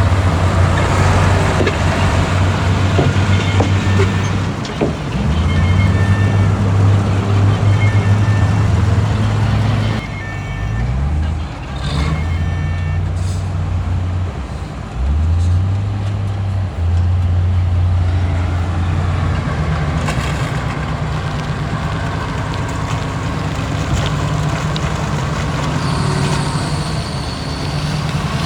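Heavy-equipment diesel engine running steadily, its pitch dropping and rising twice around the middle, with short high-pitched tones sounding now and then in the first half.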